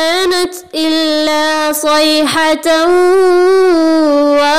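Melodic Quran recitation in tajweed style by a single high voice: long held, slightly ornamented notes with a few short pauses for breath.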